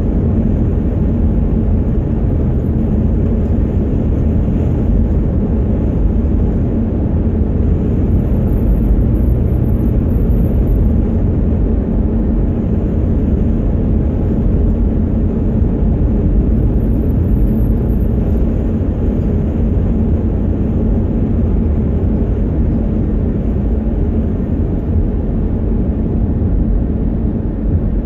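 Steady road and engine noise heard inside a car's cabin while driving at road speed: a low rumble with a constant hum.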